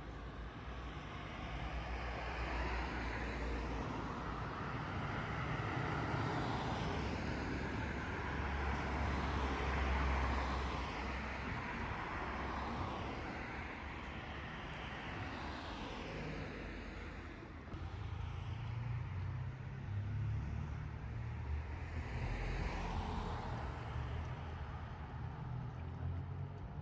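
Motor vehicle noise: a long engine and road noise with a low rumble, swelling to its loudest about ten seconds in, easing off about two-thirds of the way through, then rising again.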